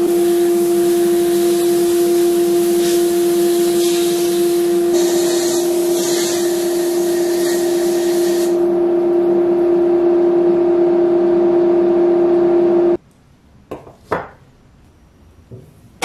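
Sandblasting cabinet running: the blast gun hisses as abrasive is sprayed onto a small rusty metal part, over a loud steady machine hum. The hiss drops about eight and a half seconds in, and about thirteen seconds in it all cuts off suddenly, leaving a few light knocks of parts handled on the cabinet's metal grate.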